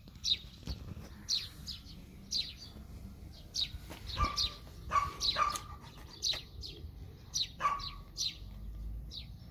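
A bird chirping over and over, a short falling chirp about once a second, with a few shorter, lower tones in between around the middle.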